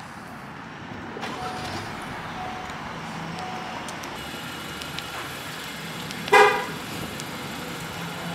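Low steady outdoor background, then one short car-horn chirp about six and a half seconds in, the Camaro's horn answering a press on its key fob before a remote start.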